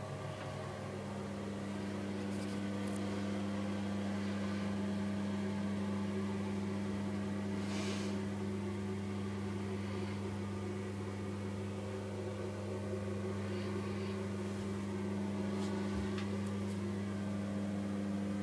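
A steady low hum, as of a small motor or fan running, with a few faint brief rustles over it.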